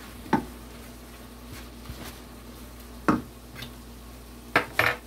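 Wooden spoon stirring a stew of saltfish and vegetables in a stainless steel sauté pan, knocking sharply against the pan four times, the last two close together near the end, over a faint steady simmer.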